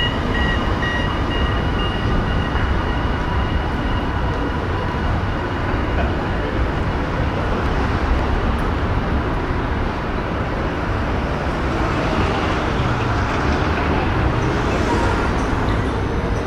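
Busy city street ambience: a steady wash of traffic noise, with a higher hiss swelling near the end.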